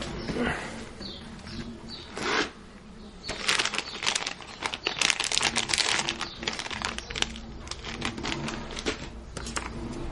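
Clear plastic bags of cables crinkling and rustling as they are handled, in quick irregular crackles that grow dense and loudest from about three to seven seconds in.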